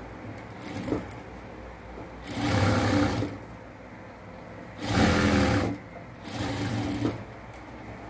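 Industrial sewing machine stitching the edge of a cotton mask in three short runs of about a second each, starting and stopping between them. A single click comes about a second in.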